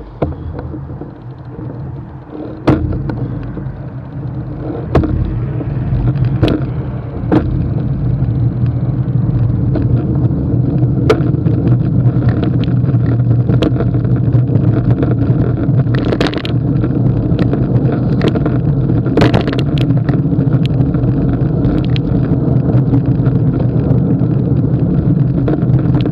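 Wind and road noise on a bicycle-mounted camera's microphone as the bike gets up to speed, growing over the first several seconds and then holding steady, with sharp knocks and rattles every few seconds.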